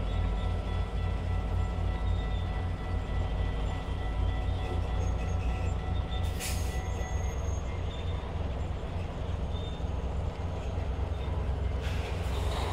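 Stainless-steel passenger train cars rolling on the track, a steady low rumble with faint, steady high-pitched wheel squeal.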